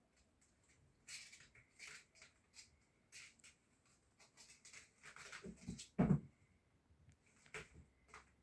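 Scattered soft taps and rustles in a small room, with one louder thud about six seconds in.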